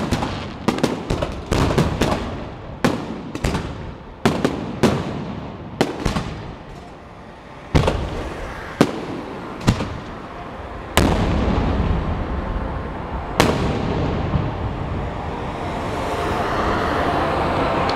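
Aerial firework shells bursting: a rapid string of sharp bangs for the first six seconds, then single booms about a second or two apart. From about eleven seconds in a steady rumble fills the gaps, and a broad wash of noise swells near the end.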